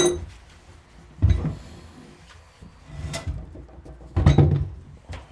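Heavy tool being handled on a wooden table: a sharp metal clank that rings briefly, then several dull knocks and thuds as it is shifted into place.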